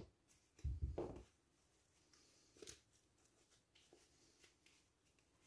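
Faint handling noises of hands putting a phone into a soft plush pouch: a soft bump about a second in, a light click a little later, and otherwise near silence.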